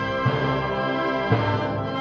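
Symphonic wind band playing a loud brass-heavy passage: sustained full chords, re-struck with a low accent about once a second.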